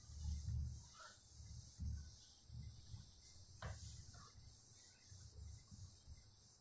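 Whiteboard eraser wiping marker off the board: faint, irregular rubbing strokes, with one sharp tap about three and a half seconds in.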